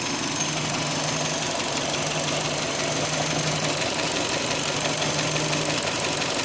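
2005 Hyundai Elantra's four-cylinder engine running at a steady idle with a fast, even ticking over its hum. The owner notices this noise more than before and does not know its cause; he wonders whether it is valve tick, knocking or fuel-injector noise.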